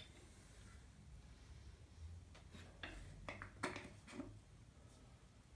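Near silence, broken by a handful of faint clicks and light metal clinks about two to four seconds in, from hand tools and the cam bearing installer being handled.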